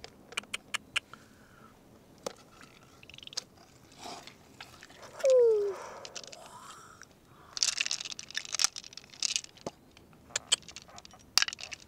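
Irregular sharp clicks and crunching scrapes, thickest in the second half. One short cry falling in pitch comes about five seconds in.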